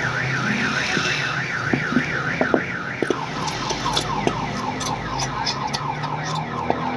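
Electronic alarm sounding: a warbling tone wavering about four times a second, switching about three seconds in to a fast run of falling chirps, about three a second. This pattern is typical of a car alarm cycling through its tones.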